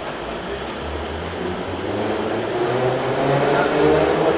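Traction motors of a Metrowagonmash 81-717.6 metro train whining as the train pulls away from the platform. The whine rises slowly in pitch and grows steadily louder as the train picks up speed.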